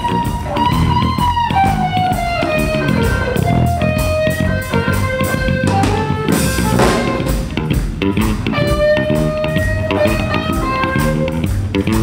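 Live blues band: an electric guitar plays a lead line with bent, gliding notes over a drum kit keeping time.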